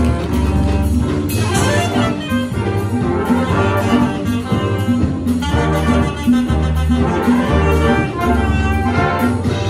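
A big jazz band playing live, with the saxophone, trumpet and trombone sections sounding together over a pulsing bass line.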